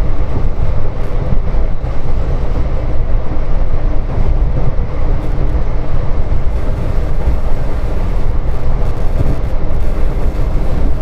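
Passenger train hauled by twin WDP4 diesel locomotives running steadily, heard from on board: a loud, even rumble with no horn.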